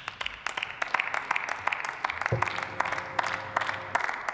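Scattered applause from a few dozen people in a large chamber. A steady low hum with a faint tone starts abruptly about two seconds in and stops about four seconds in.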